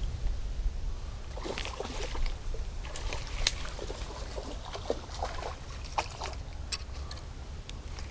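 Pond water sloshing and lightly splashing, with scattered small clicks and handling noise over a steady low rumble.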